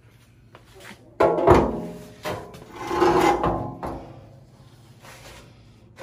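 Stamped-steel inner fender apron and shock tower panel being shifted and dragged on a concrete floor: metal scraping and rattling with a ringing tone, in a few separate bursts, the loudest about a second and a half and three seconds in.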